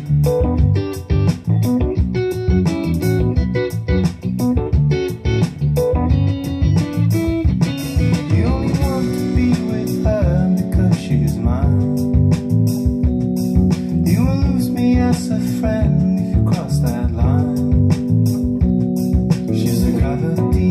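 A song played through a pair of Wilson Audio TuneTot bookshelf speakers: plucked guitar and bass, with a voice singing over them from about eight seconds in.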